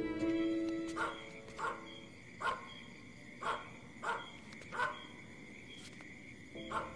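A dog barking fiercely, about seven sharp barks spaced roughly a second apart, over a steady high chirring of night insects.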